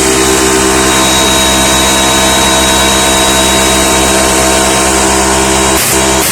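Einhell 8-bar, 6-litre oil-free portable air compressor in use: a loud, steady hum with a hiss over it, which breaks off briefly near the end.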